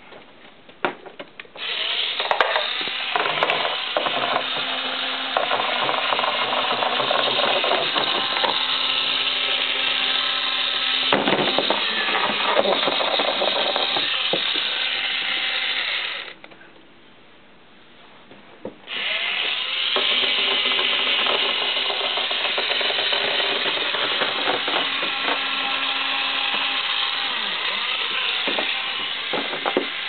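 Toy power drill running with a steady whir for about fifteen seconds, stopping for two or three seconds, then running again.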